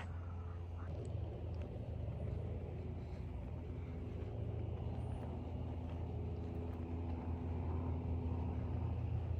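Car engine idling: a steady low drone that holds unchanged throughout.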